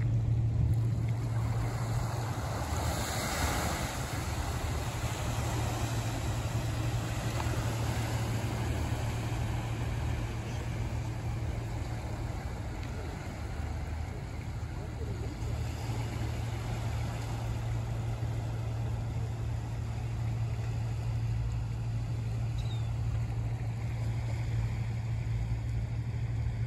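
Steady low drone of a boat engine on the canal, mixed with a wash of wind and water noise that swells briefly a few seconds in.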